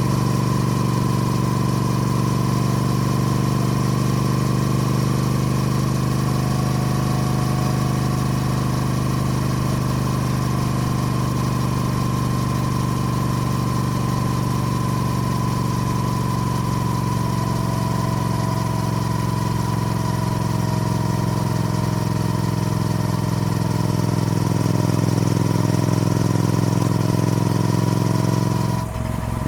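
Triumph Speed Twin's parallel-twin engine idling steadily, a slightly louder stretch near the end before the steady sound breaks off abruptly.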